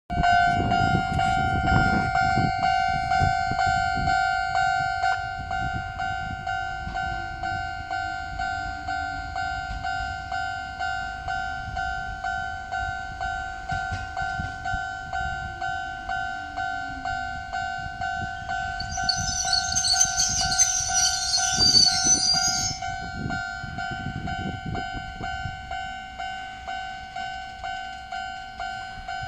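A level-crossing warning bell rings in a steady, rapid rhythm while an Izuhakone Railway 3000-series electric train runs into the station with a low rumble, its motor pitch falling as it slows. About nineteen seconds in comes a loud high hiss and squeal lasting a few seconds as it brakes to a stop.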